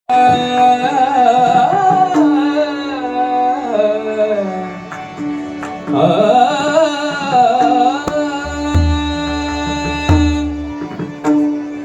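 Bhajan music: a solo voice sings a wordless, melismatic opening line over a steady held drone. Low drum strokes come in about eight seconds in.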